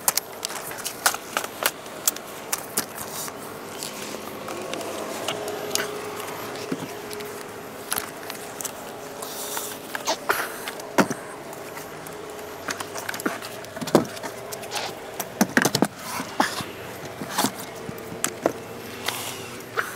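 Clicks, knocks and rattles of a Cybex Priam baby stroller being folded, taken apart and loaded into a car's trunk, with several sharper clatters in the second half, over a faint steady hum.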